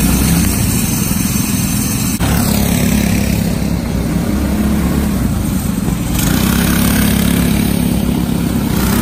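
Small go-kart engines running close by, a loud steady drone, with an abrupt change about two seconds in and again about six seconds in.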